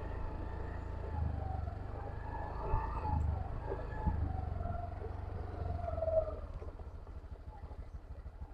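Low, steady rumble of a car rolling slowly along a rutted dirt road, heard from inside, easing off after about six seconds. A faint wavering tone sounds in the background in the middle.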